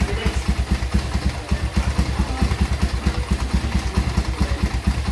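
Honda XR200 air-cooled single-cylinder four-stroke engine, fitted in a Kawasaki KX450F frame, idling steadily with an even beat of about six or seven exhaust pulses a second.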